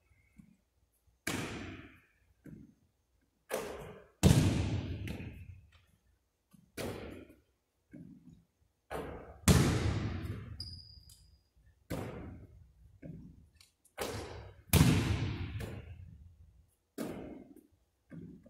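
A basketball thumping about a dozen times at irregular intervals as it bounces on the hardwood court, is caught, and strikes the backboard and rim. Each hit rings out in a long echo off the large gym's walls.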